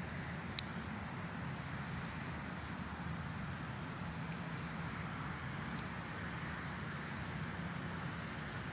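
Steady outdoor background noise, a low hum with an even hiss over it, with one sharp click about half a second in.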